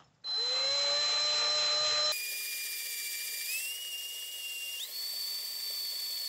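Cordless drill boring a pilot hole through a metal mirror-mounting rail with a small bit: a steady high whine that rises in pitch as it starts and steps up twice in pitch later on.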